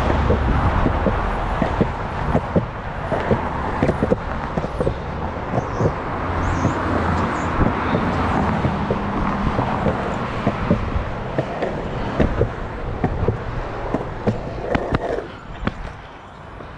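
Sector 9 longboard's wheels rolling fast on a concrete sidewalk, a steady rumble with frequent sharp clacks over the pavement joints. The rolling drops away about fifteen seconds in.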